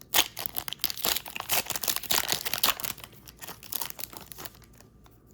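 Foil Pokémon booster pack wrapper crinkling and crackling as it is torn open, a dense run of crackles for about three seconds that dies away near the end.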